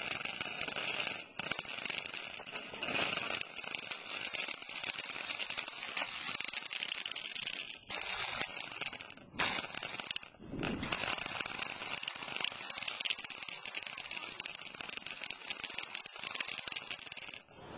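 Mini shopping cart's small, worn wheels rolling over rough asphalt, with the cart rattling close to the microphone; the steady clatter breaks off briefly a few times.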